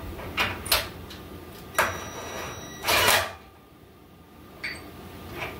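Short metallic clicks and knocks of hand tools working a bolt on a steel rear-suspension track-bar bracket, about six in all, the loudest a brief clatter about three seconds in.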